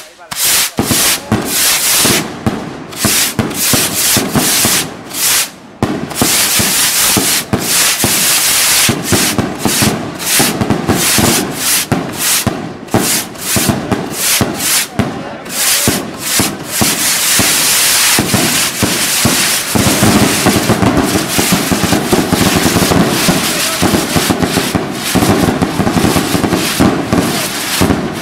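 Fireworks going off: a rapid string of sharp bangs and cracks that come thicker and thicker, merging in the second half into a continuous loud crackle.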